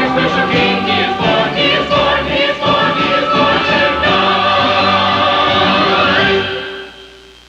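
Church chancel choir singing with musical accompaniment, ending on a held chord that fades away about six and a half seconds in.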